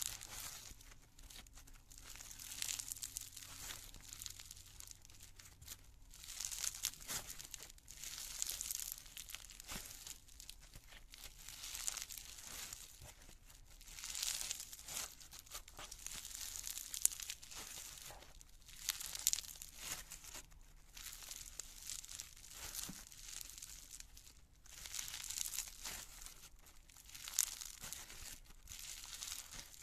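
Floam, slime packed with small foam beads, crackling and popping as hands squeeze and knead it. The crackle comes in repeated swells, one every couple of seconds, with fine clicks.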